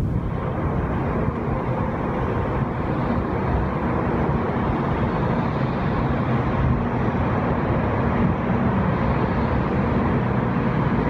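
Taiwan High Speed Rail 700T bullet train pulling into an underground station platform: a steady low rumble that does not rise or fall.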